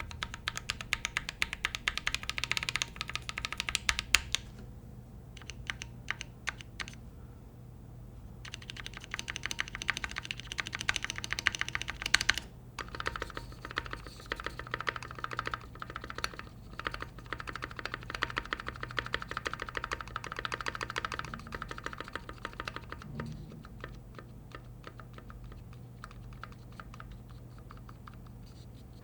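Typing on a custom Keychron Q3 mechanical keyboard with hand-lubricated switches and stabilizers: fast runs of keystrokes, with a sparser stretch about five seconds in, and the typing thinning out over the last several seconds.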